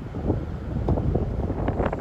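Wind buffeting the microphone: a rough, uneven low rumble that grows louder near the end.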